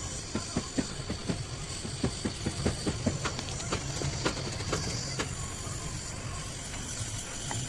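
Gas welding torch hissing steadily, with a run of sharp, irregular clicks, about three a second, that stops about five seconds in.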